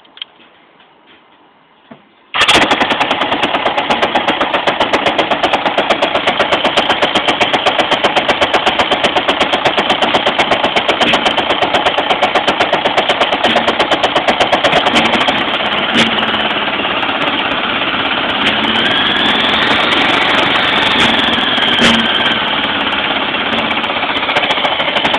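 Motorcycle engine starting about two seconds in, then idling with a fast, even knocking beat: a low-rpm clunk. Later it revs up slightly and settles back, with a couple of sharp clicks.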